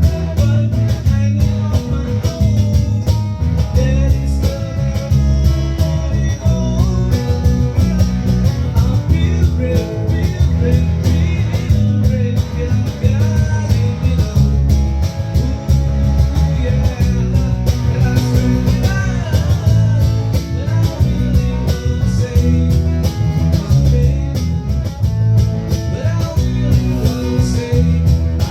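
A live band jamming in a blues-rock style, with guitar lines over a heavy bass and a steady beat throughout.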